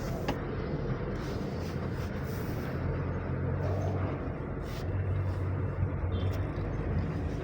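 Honda BR-V driving along: a steady low engine hum with road noise, and a couple of faint ticks.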